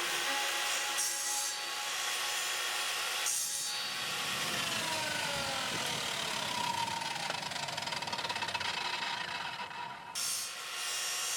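A woodworking tool cutting or abrading wood, a steady rasping noise, with a faint falling whine between about four and ten seconds in.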